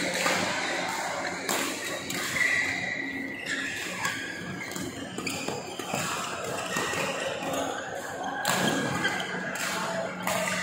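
Badminton rally: rackets striking a shuttlecock with several sharp hits a second or more apart, in a large hall.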